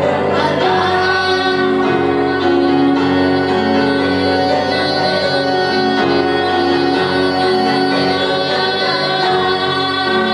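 Voices singing a song with keyboard accompaniment.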